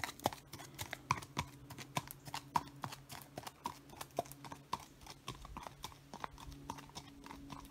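Hooves of a walking horse clip-clopping on a gravel path, fading as the horse moves away. A faint steady hum runs underneath.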